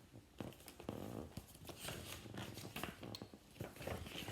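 Quiet rustling of paper with small clicks and taps as a picture book's page is handled and turned.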